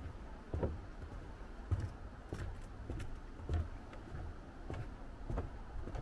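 Footsteps on a wooden boardwalk: low, hollow thuds of feet on the planks at a steady walking pace, about seven in six seconds.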